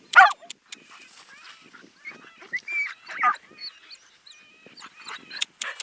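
A dog gives one loud, high, honk-like yelp just after the start, followed by faint, short whines and squeaks.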